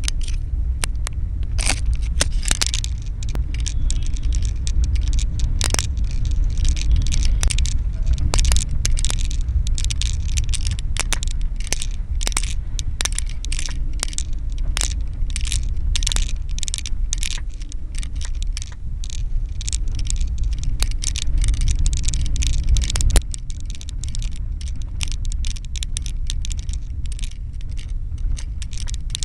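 Steady low rumble of a car driving, heard from inside the cabin, with frequent scrapes and crackling clicks over it. A sharp click comes near the end, after which the rumble is a little quieter.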